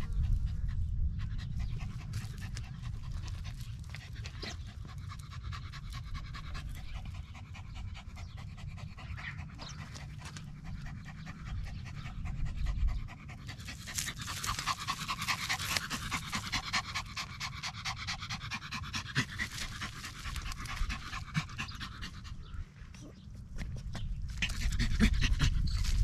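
Small Yorkshire terrier panting rapidly.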